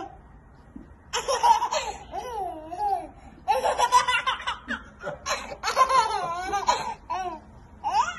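Laughter in about five bouts of a second or so each, starting about a second in, the pitch swooping up and down, with short pauses between.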